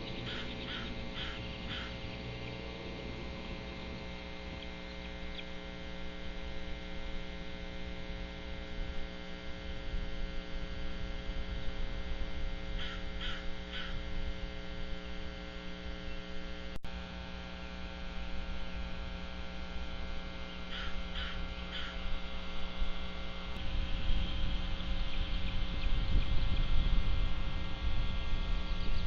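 Steady electrical mains hum on a nest camera's audio. Three brief runs of three or four quick, high chirps sound through it, and a louder low rumble comes in over the last few seconds.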